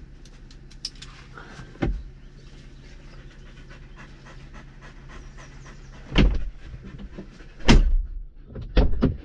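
A dog panting, with a few loud sudden bumps, mostly in the second half.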